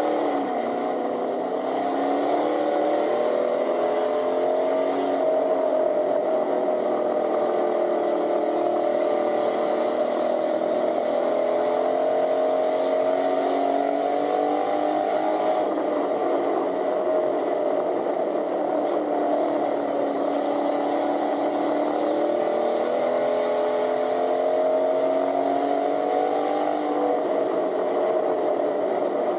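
Pure stock race car's engine heard from inside the car, revving up and easing off lap after lap, its pitch climbing and dropping back about three times.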